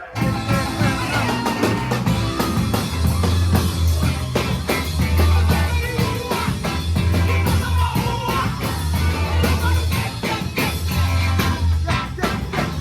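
Live rock band playing: loud drums, guitar and heavy sustained bass notes under a singing voice.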